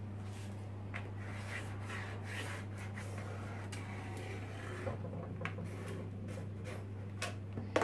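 Pen scratching and rubbing on greaseproof paper as it is drawn around the rim of a plastic dehydrator tray, with a few light clicks scattered through. A steady low hum runs underneath.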